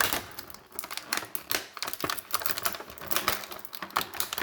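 Irregular clicking and crinkling of plastic toy packaging being handled and pulled apart to free an action figure and its accessories.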